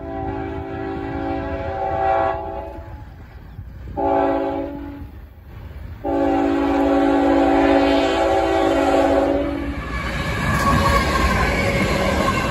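Air horn of a CSX GE ET44AH diesel locomotive sounding a multi-note chord for a grade crossing: a long blast, a short one, then another long one. About ten seconds in the horn stops, and the locomotive's engine and the wheels on the rail take over as it passes close by.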